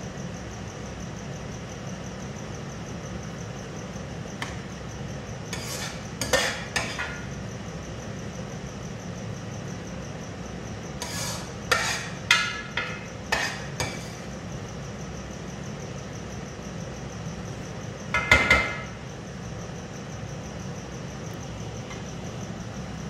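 Metal ladle scraping and clinking against a frying pan as cooked rice is scooped out and served, in several short bursts, with the loudest cluster about eighteen seconds in. A steady low hum runs underneath.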